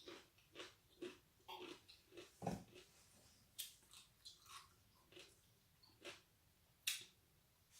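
Faint close-up chewing of a large sour pickle with whipped cream: soft wet crunches and mouth sounds every half second or so, with two sharper crunches about three and a half and seven seconds in.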